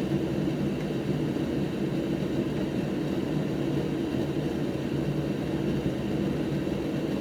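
Steady whirring hum of an electric fan or blower running continuously, with no change in pitch or level.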